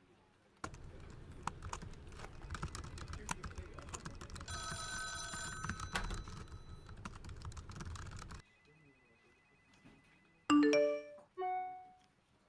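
Telephone sound effects in the dance track: crackling line static with a phone ringing through it, which cuts off suddenly, then a faint steady tone and two loud electronic beeps near the end.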